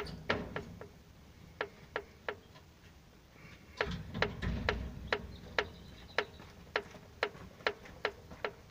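Sharp metallic clicks, about two a second, from a ZMZ-402 connecting rod being rocked by hand on its crankshaft journal. The clicks come from free play in the big end, which should not knock like this. A short low rumble comes in about four seconds in.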